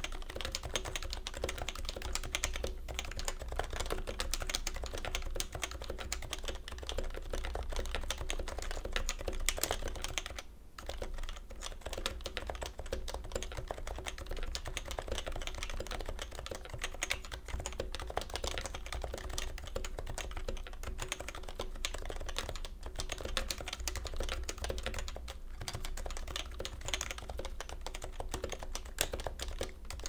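Fast continuous typing on an unmodified HHKB Professional 2 with stock 45 g Topre electrostatic capacitive switches and blank PBT keycaps, on a cloth desk mat. It is a dense stream of keystrokes with a short pause about ten seconds in.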